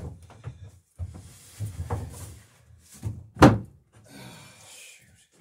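Glue-coated wooden rail being handled and pressed against a wooden dory hull: soft knocks and rustling, with one loud, sharp wooden thunk about three and a half seconds in.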